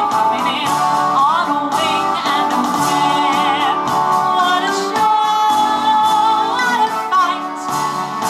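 A woman singing into a handheld microphone over instrumental backing music, amplified through a PA loudspeaker.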